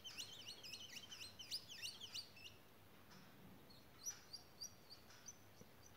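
Faint bird chirping: a quick run of high, rapidly sweeping chirps for the first two and a half seconds, then a few short, high chirps about four to five seconds in.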